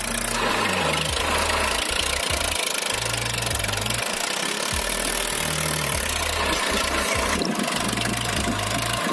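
A tractor engine running steadily, a sound effect laid over a plastic toy tractor pulling a loaded trolley through mud.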